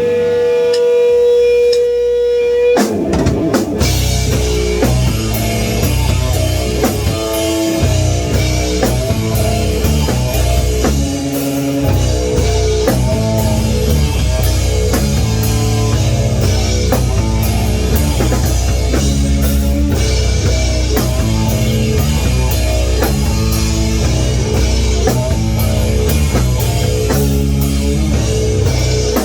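Rock band playing an instrumental intro: a held electric guitar chord rings alone, then about three seconds in the drum kit, bass and guitar come in together and keep a steady beat.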